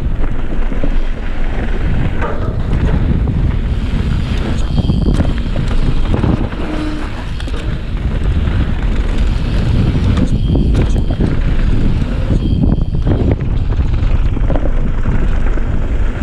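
Wind buffeting a camera microphone and mountain bike tyres rolling fast over dry, loose dirt, loud throughout with a rumble, easing briefly a few times.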